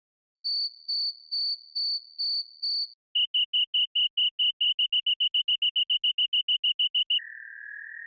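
Phase Plant software synthesizer playing synthetic cricket-like chirps: six evenly spaced high beeps, then a faster run of lower pulses that speeds up, and about seven seconds in a steady, slightly wavering lower tone takes over.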